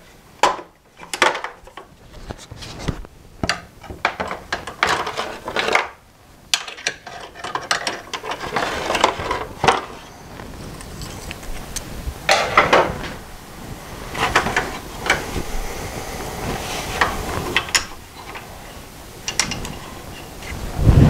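Irregular clicks, knocks and scrapes of a hand tool and a plastic fuel tank being worked back into place on a Toro S200 snowblower, with a quicker run of sharp clicks in the middle.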